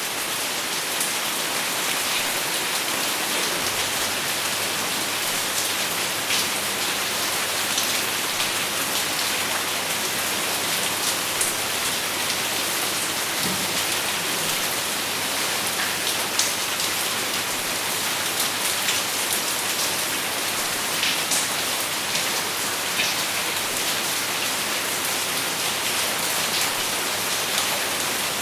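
Steady rainfall: a constant hiss with frequent sharp drop impacts on a surface.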